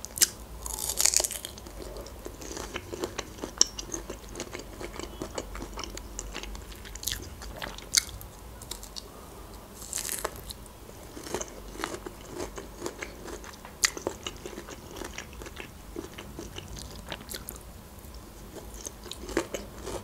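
Close-miked eating: biting into and chewing a slice of fresh peach, with wet mouth smacks and scattered sharp clicks throughout.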